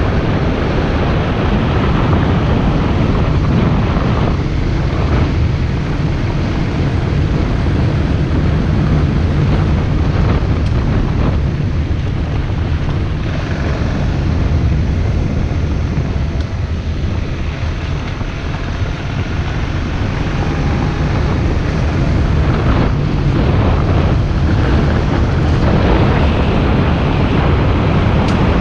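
Wind rushing over the microphone of a camera riding along on a moving bicycle: loud, steady noise, heaviest in the bass, with no break.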